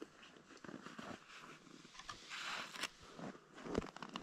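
Faint rustling and crunching with scattered small clicks, and a longer soft hiss a little past halfway: someone shifting about and handling gear close by in frozen snow.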